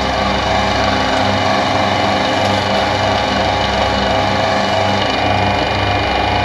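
Creworks electric wire stripper running steadily, its motor and rollers making a low pulse about twice a second.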